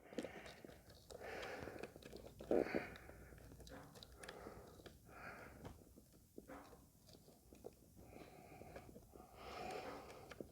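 Faint handling sounds of a battery cable being fitted back onto the battery terminal: scattered small clicks and short soft scrapes, the loudest a brief scrape about two and a half seconds in.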